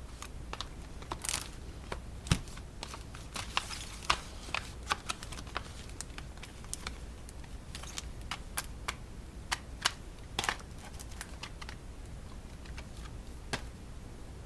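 Boxed playing card decks being handled and set down: irregular light clicks and taps of card boxes, with a couple of brief rustles.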